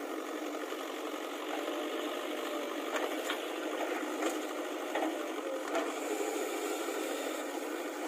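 JCB 3DX backhoe loader's diesel engine running steadily under load while the backhoe digs and dumps soil, with a few sharp knocks of the bucket and soil partway through.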